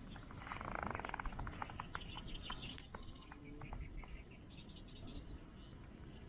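Birds chirping over a wood fire that crackles with scattered sharp pops, thickest in the first few seconds.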